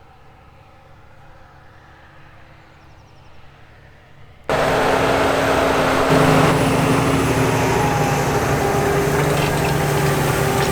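Fendt 936 tractor working under load while ploughing: a faint, distant engine hum for about four seconds, then a sudden jump to a loud, close engine with the rushing noise of the plough working the soil.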